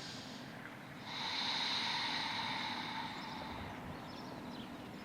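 A person breathing slowly and audibly close to the microphone, each breath a long rush of air; the loudest begins about a second in and lasts about two and a half seconds.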